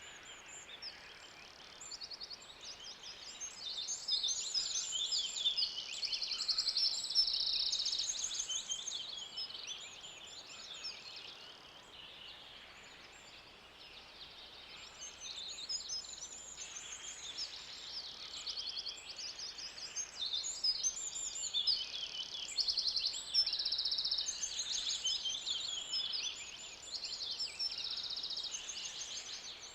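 Forest ambience: many birds singing at once in a dense, overlapping chorus of high chirps and rapid trills over a faint steady hiss. The chorus thins for a few seconds near the middle, then builds again.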